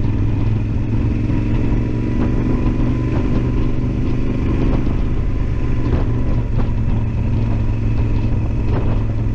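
Yamaha Super Ténéré XT1200Z's parallel-twin engine running steadily as the bike rides along, with a few faint knocks.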